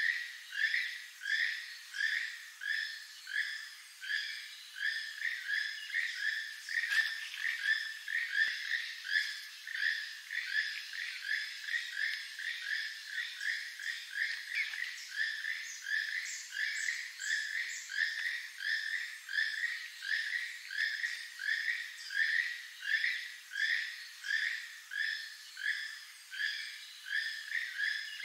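Keel-billed toucan calling: a far-carrying, frog-like croak repeated steadily, about two notes a second.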